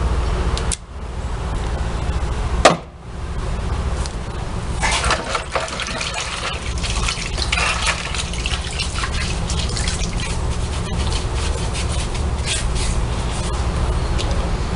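Washing-machine transmission parts being handled during teardown: scattered small clicks and light scraping over a steady low hum, with one sharp knock about three seconds in.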